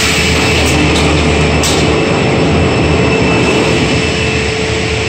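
Biesse Selco EB75 beam panel saw running: a loud, steady machine noise with a constant whine, with a couple of light clicks in the first two seconds.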